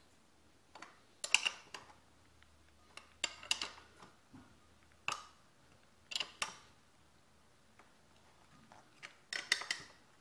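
A spanner tightening the rear axle nut of a mini bike by hand: groups of short metallic clicks and clinks every second or two.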